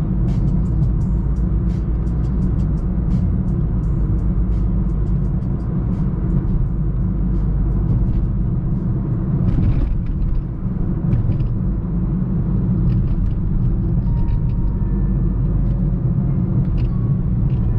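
Cabin noise of a 2012 Honda Civic driving at around 30–35: a steady low rumble of engine and road, with scattered light ticks and clicks that are thickest in the first few seconds.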